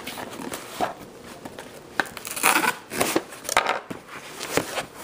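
Cardboard shipping box being ripped open by its pull tab: irregular tearing and crinkling, with handling knocks, loudest in the second half.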